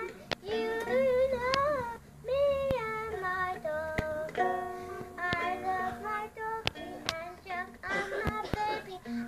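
A four-year-old girl singing her own made-up song while strumming a ukulele. The singing is held notes that slide up and down, over single strums at uneven intervals.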